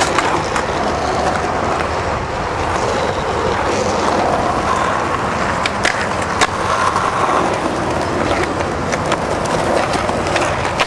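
Skateboard wheels rolling over rough asphalt, a steady loud rumble, with a few sharp clacks of the board. About six seconds in the board scrapes along a concrete ledge.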